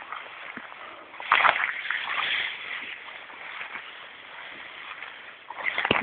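Tall dry grass rustling against someone pushing through it on foot, in uneven swishes: one strong swish about a second and a half in, more around two seconds, and another near the end, with a softer rustle between.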